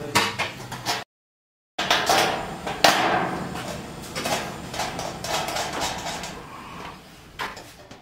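Thin sheet-iron washing machine body panels rattling, knocking and clattering as they are handled and fitted together, with a brief dropout to silence about a second in.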